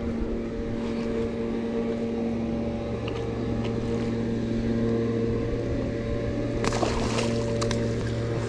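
Steady low drone of a distant motor, with a short burst of noise about seven seconds in.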